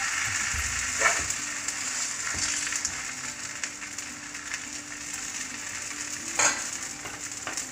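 Adai (lentil and rice batter pancake) frying in oil on a hot tawa: a steady sizzle. Two sharp clinks of a spatula on the pan, one about a second in and one near the end.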